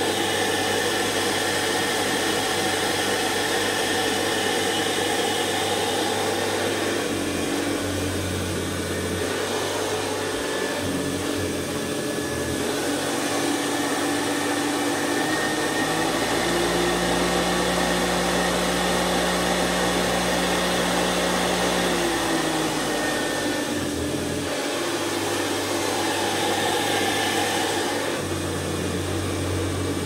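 Hoover Convertible model 1010 upright vacuum cleaner running steadily while pushed over a carpeted rug, its motor freshly serviced. The motor's hum rises a little in pitch for several seconds in the middle, then drops back.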